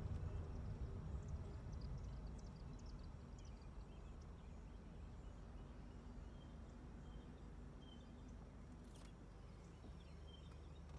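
Low rumble of a car rolling slowly, fading over the first few seconds, with faint bird chirps above it and a single click near the end.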